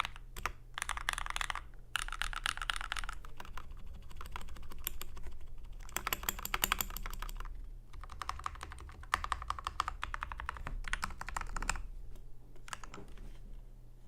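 Fast typing on a Red Square Keyrox TKL Classic mechanical keyboard with linear Gateron Red switches: quick runs of key clacks broken by short pauses, over a faint steady low hum.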